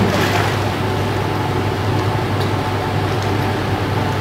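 Indoor pool hall ambience: a steady low mechanical hum, such as ventilation or filtration plant, under an even wash of water and room noise.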